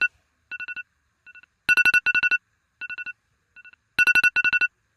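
An electronic alarm tone beeping: a loud quick run of high beeps followed by two ever-fainter repeats, the pattern cycling about every two and a quarter seconds.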